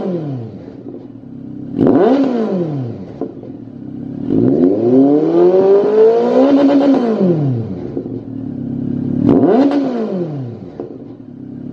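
Honda CB1300's inline-four engine revved through a Lextek XP13C aftermarket carbon silencer on the stationary bike: the end of one rev falling away at the start, a quick blip about two seconds in, a longer rev held up for several seconds then dropping back, and another quick blip near the end, idling in between.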